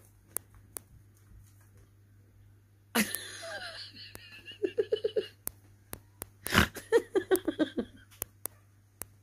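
A person laughing in two bouts, starting suddenly about three seconds in and again near seven seconds, each a run of quick breathy ha-ha pulses, with a few sharp clicks in between.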